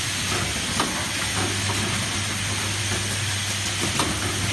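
Steady hiss with a constant low hum from workshop machinery running in the background of a saw-blade grinding shop.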